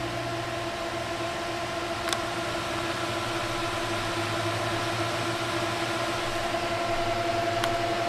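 Four Delta AFB1212SH 120 mm fans on a water-cooling radiator running flat out: a steady whoosh of air with a hum of several steady tones. A single click about two seconds in.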